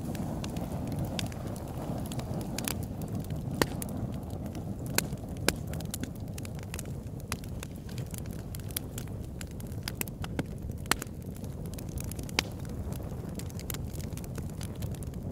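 Wood campfire burning: many scattered sharp crackles and pops from the logs, a few of them louder, over a steady low rush.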